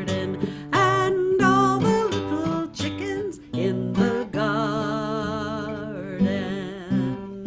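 A woman singing a folk song with vibrato and long held notes, accompanied by an acoustic guitar. Near the end the voice stops and the guitar chord rings on.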